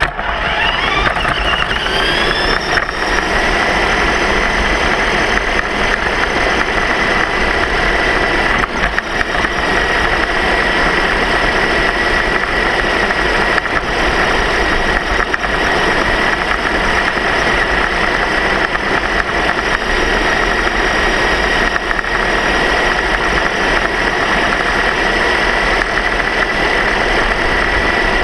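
A motor's steady whine that rises in pitch over the first couple of seconds, then holds at one high pitch over a constant low rumble.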